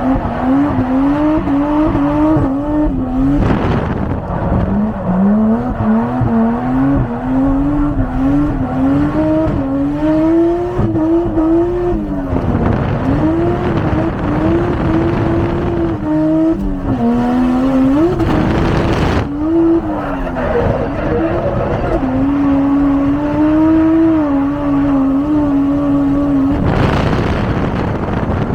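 Toyota 1JZ straight-six engine worked hard at high revs, its pitch climbing and dipping constantly as the throttle is fed in and out, with tires squealing and brief harsh surges of noise about three seconds in, past the middle and near the end.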